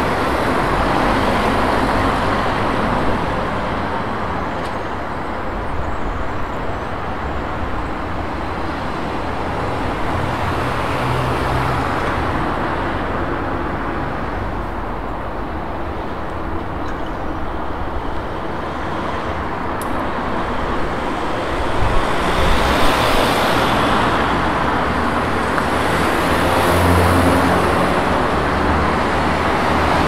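City street traffic: a steady wash of cars passing, swelling and fading as vehicles go by, with a low engine hum rising under it near the end.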